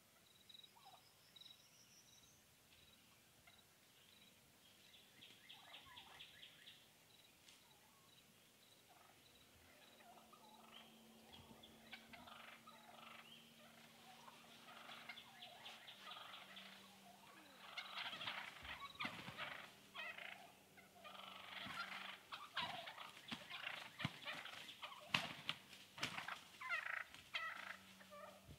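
Wild turkey jakes gobbling: faint rattling gobbles at first, growing louder and more frequent in the second half, with several birds' gobbles overlapping.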